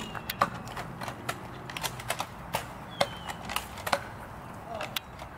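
Toy foam-dart blasters clicking and clacking as they are primed and fired: a dozen or so sharp, irregular plastic clicks.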